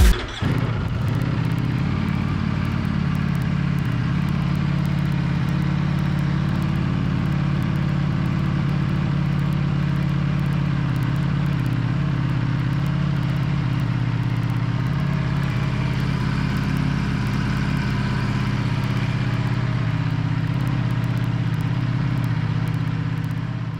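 2020 Ducati Panigale V4 S's V4 engine idling steadily in neutral, fading out near the end.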